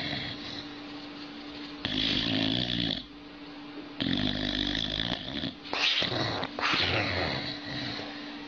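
Sleeping boxer dog snoring with deep, pitched snores: a long one about two seconds in, a longer one about four seconds in, then a few shorter ones.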